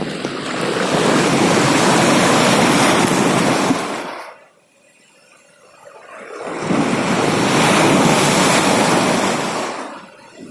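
Large Red Sea waves breaking on the shore: two surges of surf, each building up and washing out over a few seconds, with a near lull between them about halfway through.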